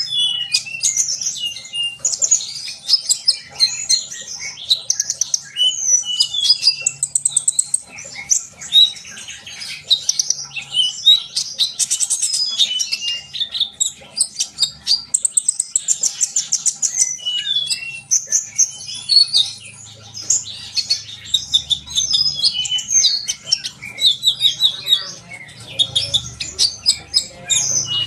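Kolibri ninja (a sunbird) singing in full, non-stop song: rapid high-pitched chirps and fast trills, one phrase running straight into the next.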